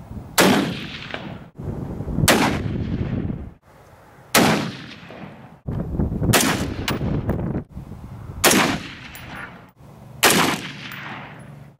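Six rifle shots, about two seconds apart, each with a short echo trailing after it before it drops off abruptly: a scope being sighted in at 100 yards.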